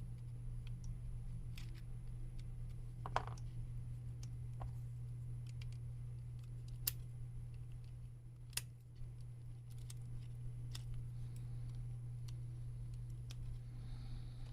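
Scattered small clicks and ticks as the cable connectors inside a PlayStation 5 controller are worked loose with small hand tools, over a steady low electrical hum.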